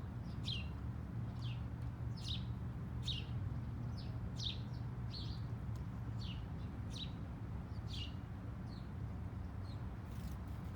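Small songbirds chirping: short, quick downward-sliding chirps, roughly one a second and irregularly spaced, over a steady low hum.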